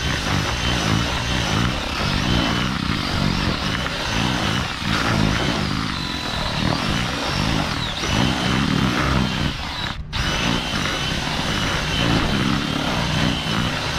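Electric drill fitted with a mixing paddle, running to stir groundbait and crushed hemp. The motor's whine wavers in speed as it works and stops for a moment about ten seconds in before running on.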